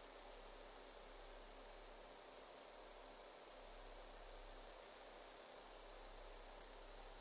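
Steady, high-pitched hiss of noise played as a tinnitus masker, its energy piled up at the very top of the hearing range, unchanging throughout.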